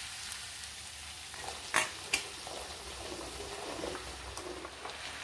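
Onion-tomato masala frying with a quiet, steady sizzle in a kadhai while chopped okra is tipped in. Two sharp knocks a little under two seconds in.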